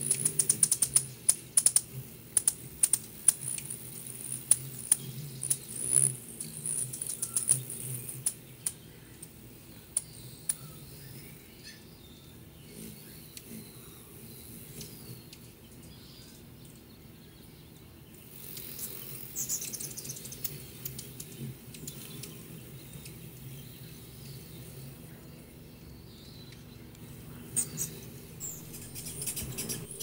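Hummingbirds calling at feeders: a dense run of sharp, high chips and clicks for the first several seconds, then quieter, with a few high squeaky calls about two-thirds of the way through and again near the end.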